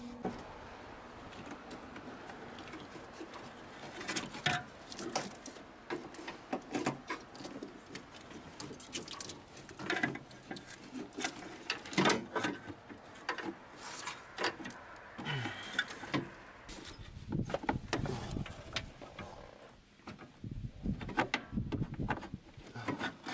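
Irregular clicks, taps and light rattles of hands fitting a blower motor and handling metal and plastic parts in a vehicle's engine bay, with denser knocking in the second half.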